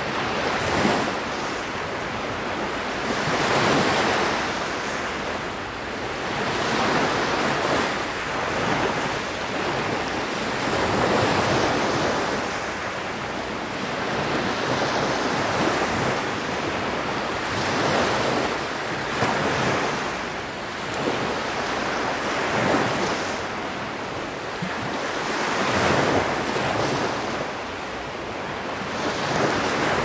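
Sea waves breaking and washing on the shore, the surf swelling and fading every two to three seconds.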